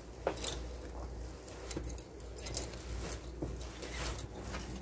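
Faint rustling and crinkling of a stiff Banarasi katan silk saree with gold zari weave as it is unfolded and spread out by hand, in short irregular bursts of handling noise.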